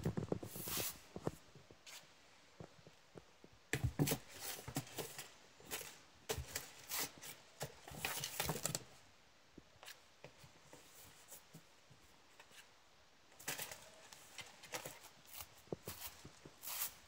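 Crumpled paper balls rustling and rattling inside a cardboard box while a cat paws and scratches at the cardboard, in irregular bouts with a quieter stretch in the middle.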